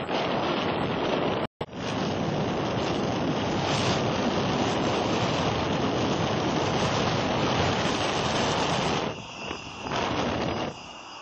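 Loud, steady rushing of gusting wind buffeting the microphone. It breaks off for an instant about a second and a half in, wavers after about nine seconds and drops away near the end.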